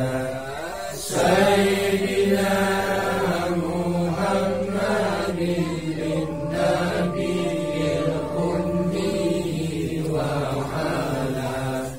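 Men's voices chanting a tahlil recitation, the Islamic litany of prayers for the dead, in long sustained phrases. There is a short breath-break about a second in and another at the end.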